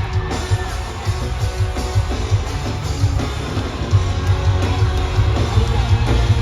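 Loud live band music with electric guitar over a heavy, pulsing bass and drum beat.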